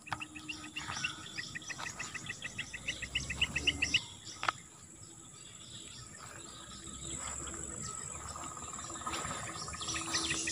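Evening swamp-edge birds chirping in a rapid run of repeated notes for about four seconds, followed by a single sharp click. Then a steady insect trill carries the rest.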